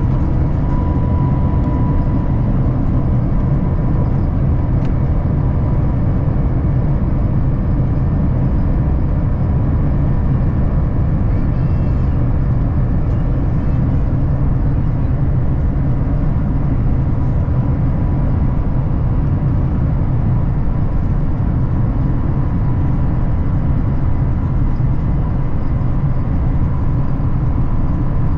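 The Airbus A350-1000's Rolls-Royce Trent XWB engines, heard from inside the cabin: a loud, steady rumble with a steady whine over it.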